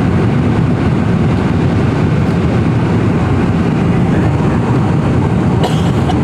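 Steady low rumble of cabin noise inside a Boeing 747-400 in flight: the jet engines and rushing airflow heard through the fuselage. A brief scratch sounds near the end.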